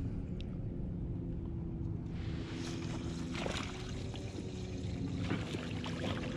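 Water trickling and splashing against a kayak hull as the kayak moves, in swells from about two seconds in, over a steady low hum.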